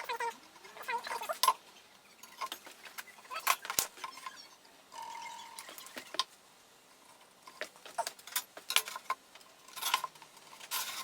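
Irregular light clicks, taps and clatter of hand tools and workpieces being handled at a workbench, with a brief steady tone about five seconds in.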